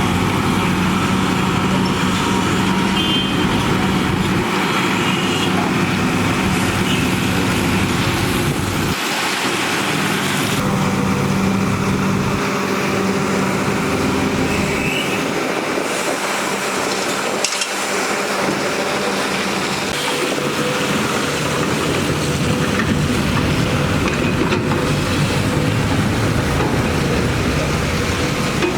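Heavy earthmoving machinery running steadily: the diesel engines of road-building equipment working under load, with a single sharp knock a little past halfway.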